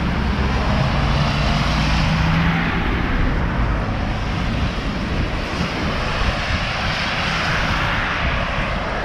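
Steady roar of storm wind on the microphone, mixed with traffic on a slushy street, with a low engine hum for the first few seconds.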